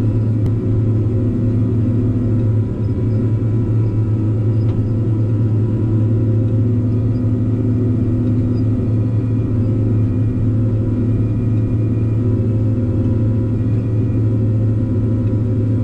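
Tigercat 620 skidder's diesel engine running steadily under load, a deep even drone, while its front blade pushes loose dirt and debris.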